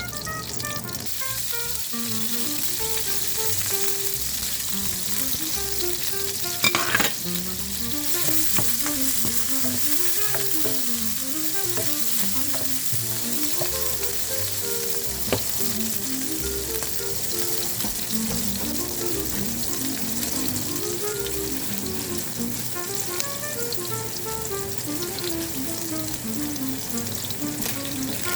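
Soya chunks sizzling as they fry in a hot pan, with steady frying hiss and stirring, and a brief louder clatter about seven seconds in.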